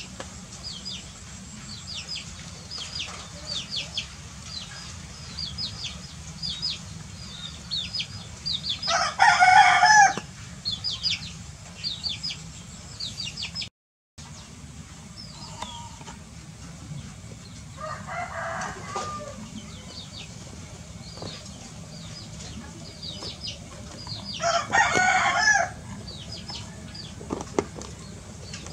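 A rooster crowing, loudly, about a third of the way in and again near the end, with a fainter crow in between. Quick high chirps keep up throughout.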